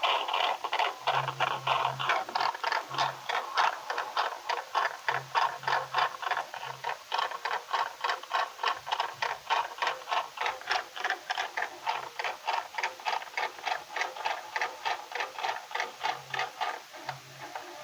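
Recorded from inside a washing machine drum: a keypad phone tumbling and knocking against the drum as it turns, in a steady rhythm of about three knocks a second, with a low hum coming and going underneath.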